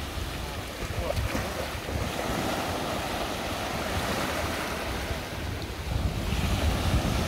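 Small ocean waves breaking and washing up on a sandy shore, with wind buffeting the microphone.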